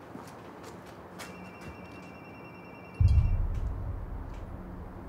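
A steady high electronic tone, like a buzzer, sounds from about a second in and breaks off at about three seconds. At that moment a deep low boom swells in and fades slowly.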